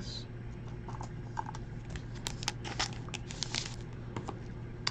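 Faint handling of trading cards and a torn foil pack wrapper: scattered light ticks and crinkles, busiest about two to four seconds in, over a low steady hum.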